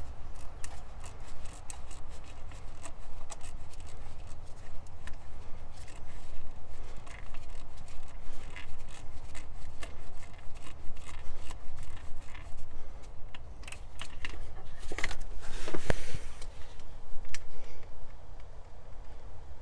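1/4-inch hand ratchet with a 10 mm socket and extension clicking in short irregular runs, with small metal scrapes, as a bolt is backed out. A louder scrape and clatter comes about three-quarters of the way through.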